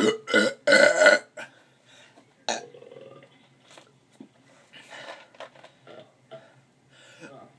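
Deliberate loud burps: several in quick succession in the first second and a half, another short one about two and a half seconds in, then quieter sounds until a loud burp at the very end.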